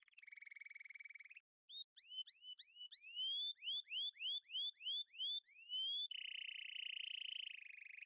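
High-pitched bird-like chirping: a buzzing trill, then a run of quick rising whistles about two a second, then another buzzing trill about six seconds in.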